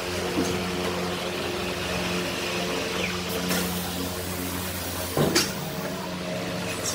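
Steady low machine hum in a tyre shop, with a few knocks and clatters as a car tyre is handled onto an alloy rim clamped on a tyre-changing machine, the loudest about five seconds in.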